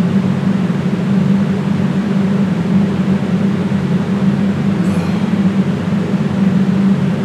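A loud, steady droning hum with hiss that never lets up.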